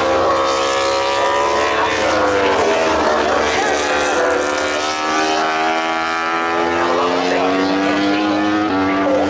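Several racing motorcycle engines running at once, their pitches gliding slowly up and down.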